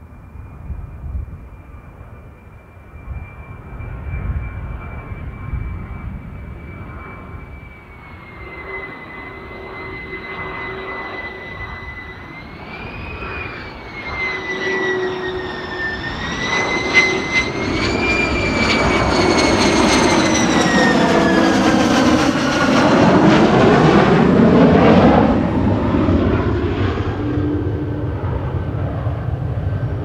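Lockheed U-2's single General Electric F118 turbofan whining on a landing approach. The whine wavers up and down in pitch and grows louder as the jet comes close, swelling into a full rush of jet noise about two-thirds of the way through, then easing. Gusty wind rumbles on the microphone underneath.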